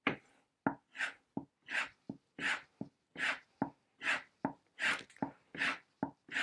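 Chisel being stroked on a leather strop charged with honing compound: a regular run of short swishes, a little over one a second, with a light click between strokes.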